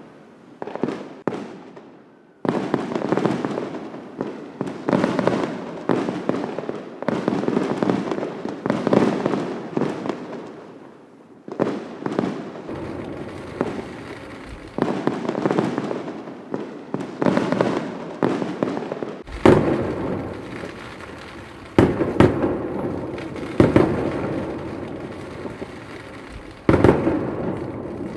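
Fireworks display: a dense run of shell bursts and crackle, then, in the second half, sharper and louder bangs every second or two, each trailing off in a rolling echo.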